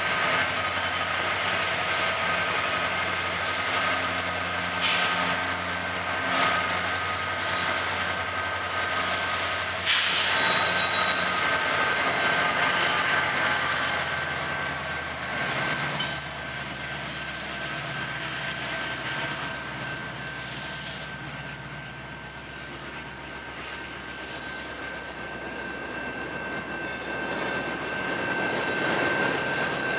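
Diesel-hauled freight train rolling past: a low locomotive hum for the first half, then freight cars with steady high-pitched wheel squeal. One squeal tone slides lower partway through. Sharp metallic clanks come about five and six seconds in, and a louder bang at about ten seconds.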